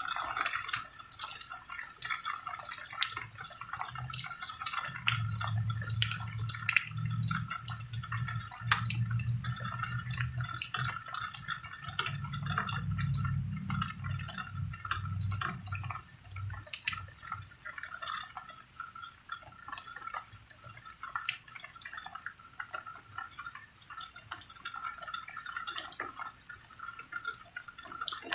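Rain falling as many separate drips and splatters, with a low rumble of distant thunder from about five seconds in that fades out around sixteen seconds.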